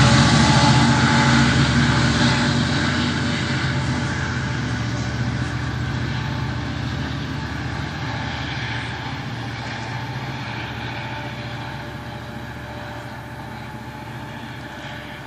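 AMT commuter train's diesel locomotive moving away with its train. Its engine drone and rolling rail noise fade steadily as it recedes.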